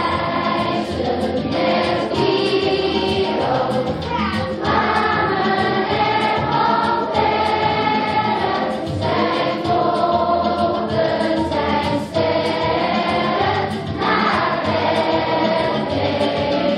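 Children's choir singing a song over an instrumental backing.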